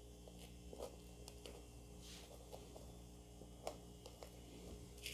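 Faint rustling of taffeta and net fabric with scattered light clicks as the net is smoothed and pinned onto a taffeta circle skirt, over a steady low hum.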